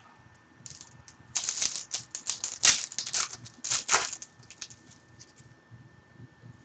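Foil hockey card pack torn open, its wrapper crinkling in a burst of crackling rustle that starts about a second and a half in and stops after about three seconds. A few lighter clicks follow as the cards are handled.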